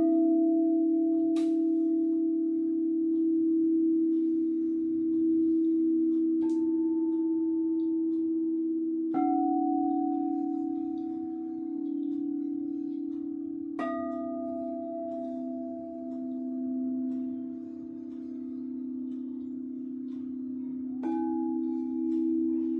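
Crystal singing bowls: two low bowls drone steadily together with a slow beating, while higher bowls are struck about five times, each ringing out and fading.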